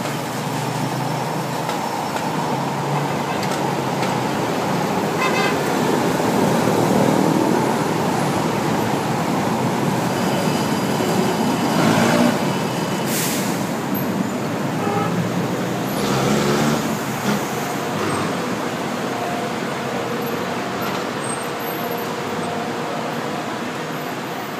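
Busy road traffic: vehicle engines running steadily, with several horn toots along the way.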